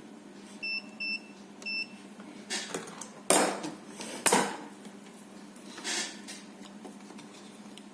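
Digital multimeter giving three short high beeps in the first two seconds, then several short clattering knocks and rustles of things being handled on a workbench.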